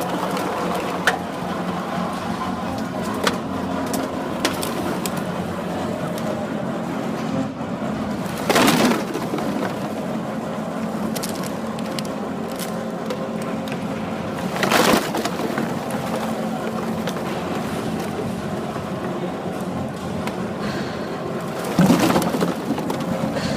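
Horizontal hydraulic baler running with a steady machine drone while it presses PET bottles. Three loud bursts of noise, each under a second long, come several seconds apart.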